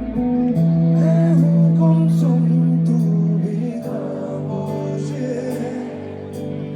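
Music with sustained held notes and a singing voice.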